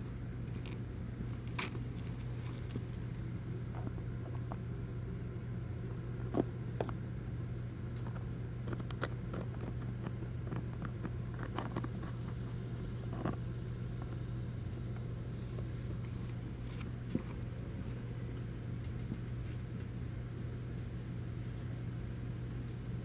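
A steady low hum with scattered faint clicks and crinkles as a hand squeezes glue out of a plastic bag along a wall crack close to the camera.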